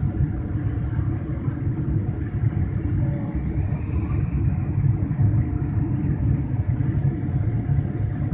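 Steady low rumble inside a jet airliner's cabin in flight: engine and airflow noise heard from a window seat, with a few faint steady tones above it.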